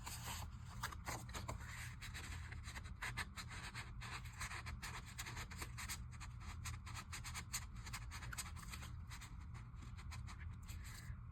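Faint scratching and rustling of paper being handled and worked, with many small clicks.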